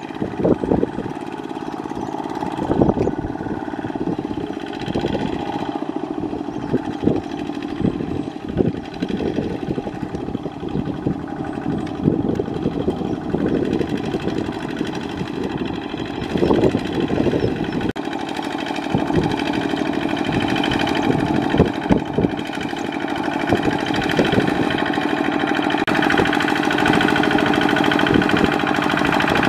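Kubota ZT155 two-wheel walking tractor's single-cylinder diesel engine running steadily under load as it hauls a trailer of rice sacks through mud, with frequent irregular knocks and clunks. It grows a little louder toward the end.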